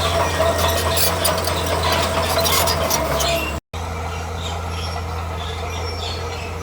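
Heavy construction machine running, its engine a steady low hum under metallic clanking and a squeal, as of steel tracks; about three and a half seconds in the sound cuts off abruptly and a smoother engine hum follows.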